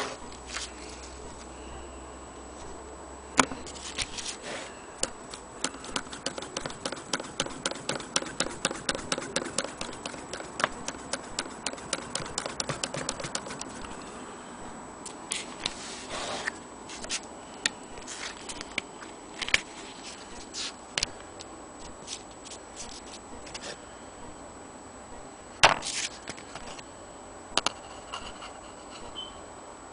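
Antique Willcox & Gibbs chain-stitch sewing machine stitching through fabric: a rapid, even clicking of the mechanism that starts about five seconds in and stops about fourteen seconds in. Before and after it come scattered single knocks and clicks of the machine and cloth being handled.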